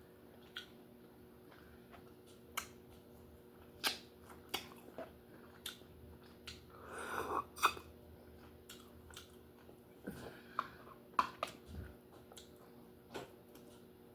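Close-up eating sounds of lobster being eaten: scattered sharp clicks and cracks of shell and mouth sounds, with a longer noisy stretch about seven seconds in.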